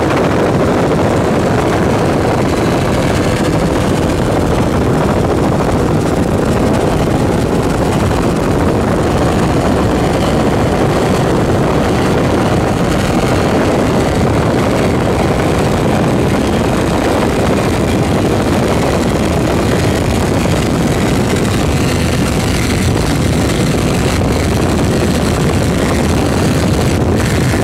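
Loud, steady engine drone mixed with a rushing noise, without any rise or fall in level or pitch.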